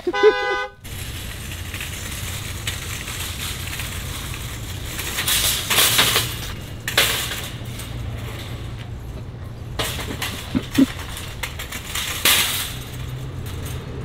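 Vehicle alarm sounding the horn in a steady multi-tone blare, cut off suddenly about a second in. After that there is a steady low rumble with several short rattling surges as a metal shopping cart is rolled across the lot and shoved into a cart corral.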